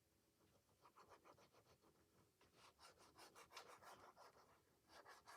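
Faint, rapid scratchy rubbing of paper as a glued page is pressed and smoothed down by hand onto a journal page, starting about a second in and growing stronger.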